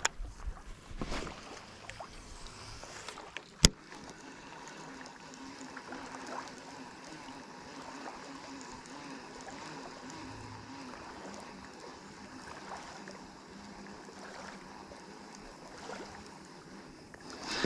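Baitcasting reel being wound in to retrieve a lure after a cast: a steady faint whir, with one sharp click a few seconds in, over quiet lapping water.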